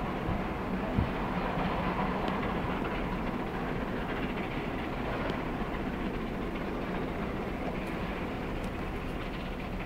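Steam-hauled train running along the line, a steady rumble and hiss of the locomotive and its carriages, with one sharp thump about a second in.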